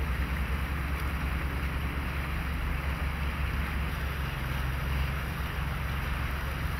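Wind blowing on the microphone: a steady low rumble with a rushing hiss above it.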